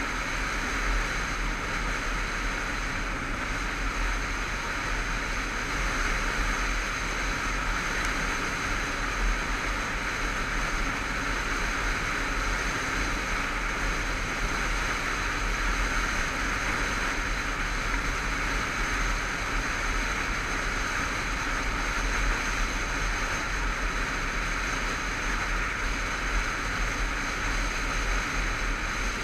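Motorcycle riding at a steady cruising speed: steady wind rush over the camera microphone, with the engine and tyre noise running underneath.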